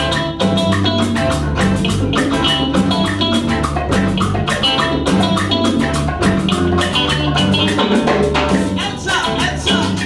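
Live cumbia band playing: electric guitars over a steady rhythm of congas, drum kit and bass guitar.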